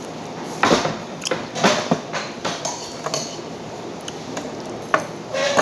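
Scattered clinks and knocks of dishes and tableware. The sharpest come about a second in, again around two seconds in and twice near the end.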